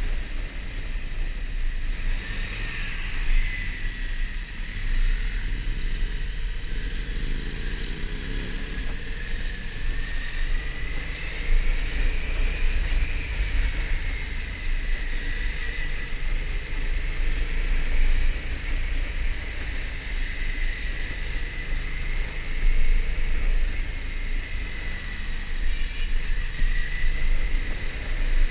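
Yamaha MT-07 parallel-twin engine running as the motorcycle rides slowly through traffic, under heavy wind rumble on the action camera's microphone. The engine pitch rises briefly about six to eight seconds in, and a thin whine wavers up and down in pitch.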